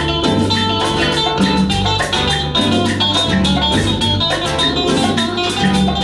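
Live band playing cumbia: an electric guitar melody over a steady beat of congas and other Latin hand percussion with bass.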